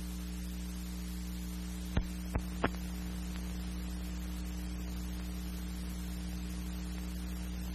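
Steady electrical hum and hiss from an old newsreel soundtrack, with three sharp clicks in quick succession about two seconds in.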